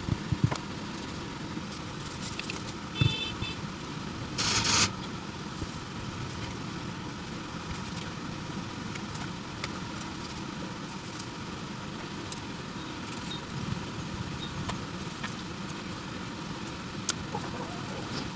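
Paper and craft tools being handled, with small clicks and rustles and a short, louder rustle about four and a half seconds in, over a steady low rumble.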